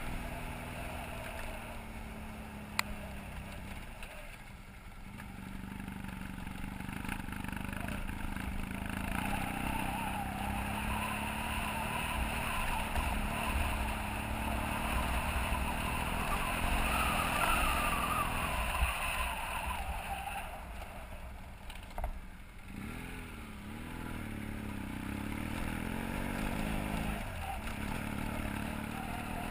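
BMW F800GS parallel-twin engine running as the motorcycle rides a dirt road, over a steady rushing noise. The engine note rises and falls with the throttle in the second half, and a few short sharp clicks stand out.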